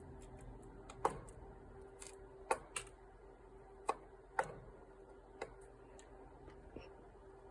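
Irregular sharp taps or clicks, about seven spread over several seconds, with the loudest near the start and in the middle, over a faint steady hum.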